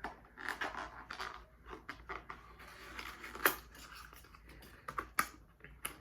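Rustling and handling of small boxes and packaging being opened, with a few sharp clicks.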